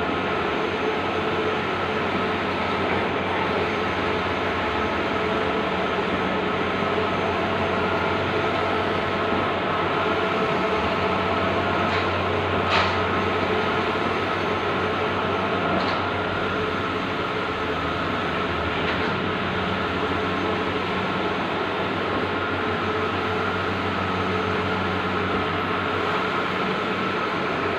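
Bluewin outdoor large-format digital printer running: a steady mechanical whir with a constant hum and whine, and a couple of faint clicks about halfway through.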